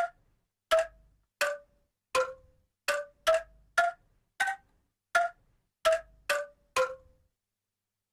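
Bamboo angklung played in the centok style: about a dozen single sharp notes, one at a time and at shifting pitches, each dying away within half a second rather than sustaining.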